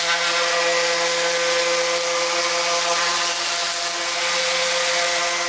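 DeWalt random orbital sander running steadily while sanding the side of a wooden drawer box: a steady motor hum over the hiss of the sanding pad on the wood.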